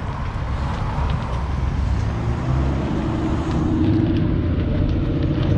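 Lowered Volkswagen Golf hatchback driving slowly past at low revs, its engine and exhaust note steady and growing a little louder as it comes close.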